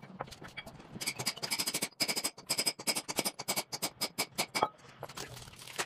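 A hand hammer tapping quickly on a punch held against a steel cylinder head, each blow ringing metallically. The blows start about a second in and stop shortly before the end, with faint scraping of metal parts around them.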